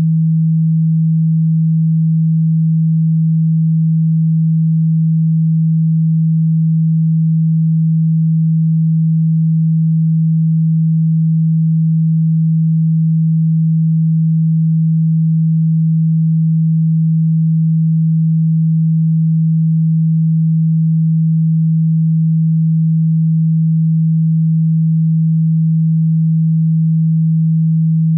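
A single steady, low-pitched electronic sine tone that holds the same pitch and loudness throughout.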